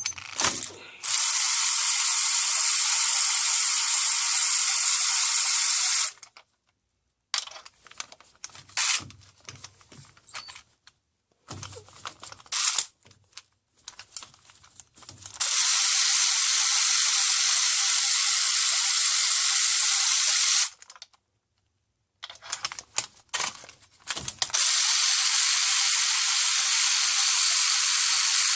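Ratchet wrench clicking steadily in three long runs while the spark plugs are being loosened and spun out, with short bursts of clicks and knocks between the runs.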